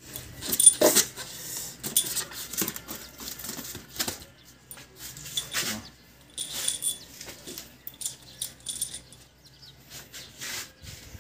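A handful of steel cylinder head bolts for a Mitsubishi 4D56 engine clinking together as they are turned over and sorted in the hands: irregular metallic clicks, some with a short ring.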